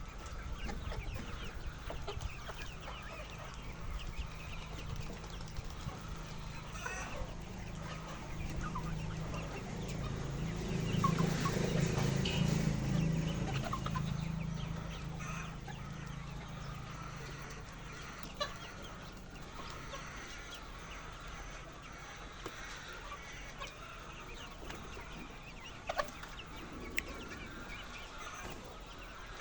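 Chickens in a poultry house clucking steadily. A low hum swells for a few seconds in the middle and then fades, with a few sharp clicks.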